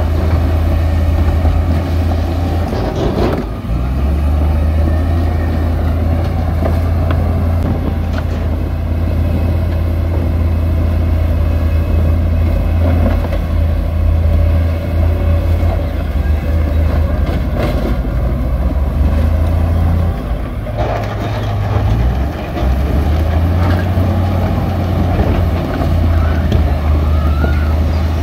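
Heavy diesel engine of earthmoving machinery running with a deep, steady drone. Its note shifts briefly about three seconds in and again around twenty seconds in, as the load changes.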